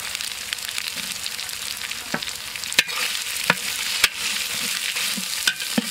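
Onions, green chilies, mint and whole spices sizzling steadily in hot oil in a large metal pot. A ladle stirs the masala and clinks sharply against the pot about six times in the second half.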